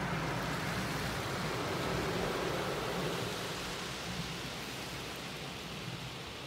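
Automatic car wash heard from inside the car: a steady rush of water spray and rotating brushes against the bodywork over a low mechanical hum, easing off a little in the second half.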